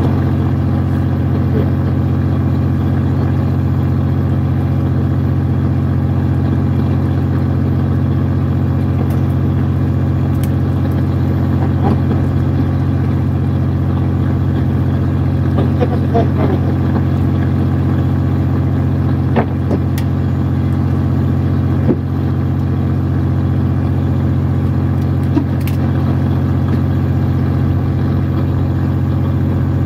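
A fishing boat's engine running steadily, a constant low hum. A few faint knocks come through in the second half.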